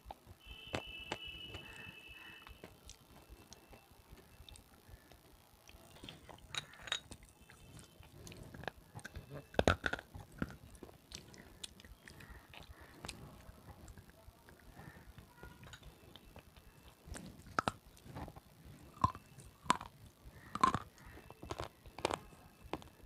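Close-miked chewing of red sileti: a person biting and crunching a hard, brittle bite, with irregular sharp crunches between quieter chewing. The loudest crunches come about ten seconds in and again over the last few seconds.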